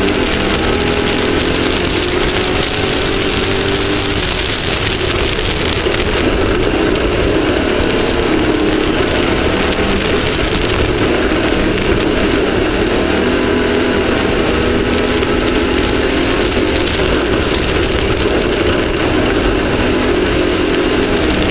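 Off-road race vehicle's engine running hard at speed, its pitch wavering with the throttle and easing briefly about four seconds in, over a loud rushing of wind and terrain noise.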